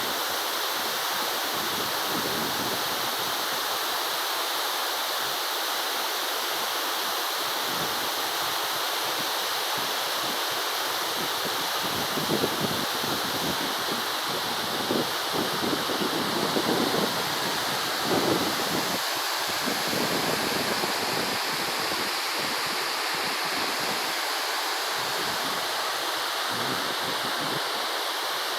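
River water flowing steadily over the bank, a continuous rushing. Between about 12 and 21 seconds in, louder uneven surges come in over it.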